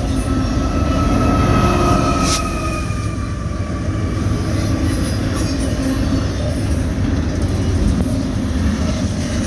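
Double-stack intermodal freight train's well cars rolling past with a steady noise of steel wheels on rail. A wheel squeal rings over the first three seconds, falling slightly in pitch, and a sharp clank comes about two seconds in.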